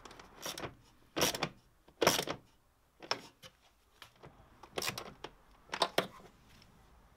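Hand ratchet and socket clicking, with small metal parts clinking, as a bracket is bolted to the battery tray. It comes in about six short bursts, the loudest two in the first two seconds or so.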